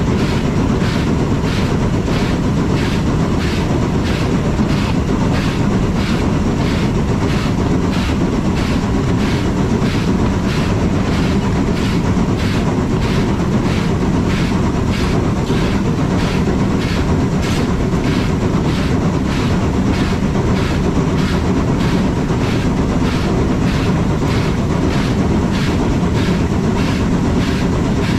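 Steam-hauled rack-and-pinion train running along the track: a steady rumble with a regular beat about twice a second.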